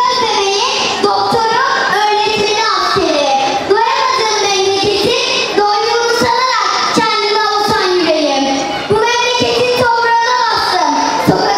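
A young girl singing solo into a handheld microphone, her voice amplified through the hall's sound system. She holds long notes that slide up and down in pitch.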